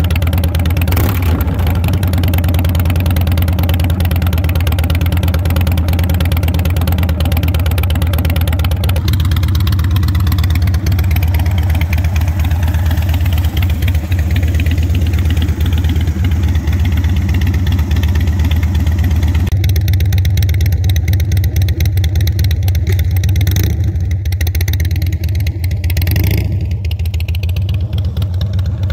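Harley-Davidson Dyna Wide Glide's air-cooled V-twin running through Vance & Hines exhaust pipes, idling with a low, steady beat. Near the end the bike pulls away.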